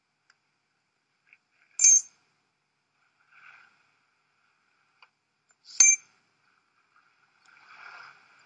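Two sharp metallic clicks with a brief bright ring, about four seconds apart, from a small metal device being set against a door, with faint soft rustles between them and near the end.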